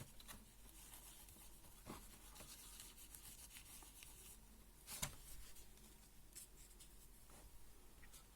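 Faint scraping and rubbing of hardened thermal grease being cleaned off a laptop processor, with two small knocks, the louder one about five seconds in.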